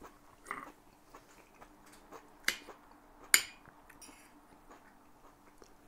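A metal spoon clinking and scraping against a plate as food is scooped up. It gives two sharp clinks less than a second apart in the middle, and a few fainter taps around them.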